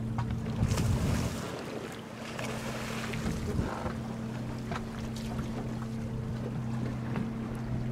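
A boat's engine running with a steady low hum, under water splashing and wind on the microphone; the splashing is loudest about a second in.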